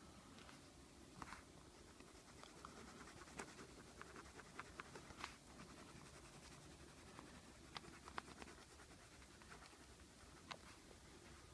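Faint scratching of a colored pencil on paper as a drawing is colored in, with scattered small ticks and taps of the pencil.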